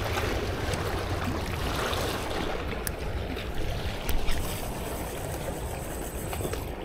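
Steady wash of sea water at the shoreline with a low rumble underneath, and a brief louder knock about four seconds in.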